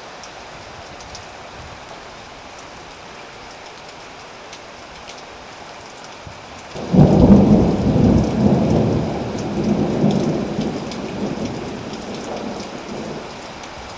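Steady rain falling, then about halfway through a sudden thunderclap breaks into a long rolling rumble of thunder that slowly fades.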